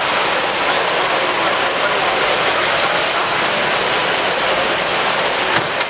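Steady crowd chatter and hall noise from many people in a large exhibition hall, with a couple of sharp clicks near the end.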